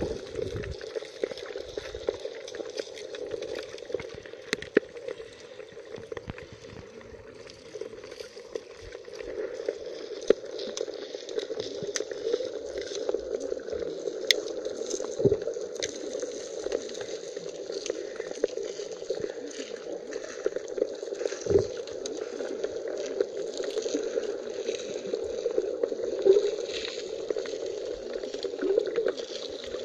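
Underwater sound over a pebble seabed: a steady, muffled water hum with many small clicks and crackles throughout. A few sharper knocks stand out near the middle.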